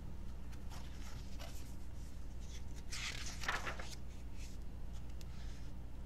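Paper rustling as a picture book is opened and its cover and pages are turned back, loudest for about a second around three seconds in, over a low steady hum.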